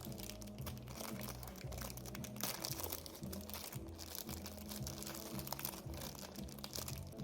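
Background music with crinkling and crunching noises throughout, densest about two and a half seconds in.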